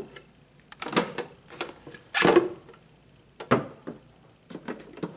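Hard plastic clicks and knocks from a vintage Black & Decker thermal carafe coffee maker being handled, with its parts taken apart. There are about half a dozen separate clacks, the loudest about two seconds in.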